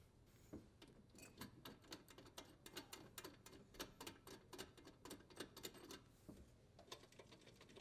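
Faint, regular clicking, about three clicks a second, from adjusting a Whirlpool dishwasher's leveling legs to lower the appliance. The clicking stops about six seconds in.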